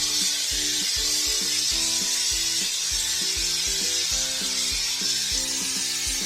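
Aerosol can of drywall texture spray hissing steadily as it is sprayed, starting abruptly, over background music with a steady beat.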